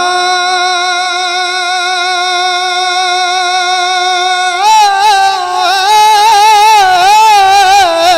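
A man singing a naat, an Urdu devotional song, solo into a microphone. He holds a long vowel on one steady note for about four and a half seconds, then breaks into wavering, ornamented runs.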